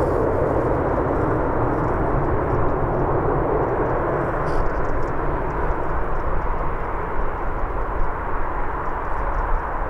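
Boeing 737-800 airliner's CFM56 jet engines giving a steady rumbling roar as the aircraft rolls out along the runway after landing, easing slightly near the end as it slows and moves away.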